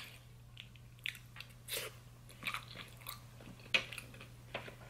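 A person chewing a forkful of mac and cheese close to the microphone: a scattered string of short, wet mouth clicks and smacks.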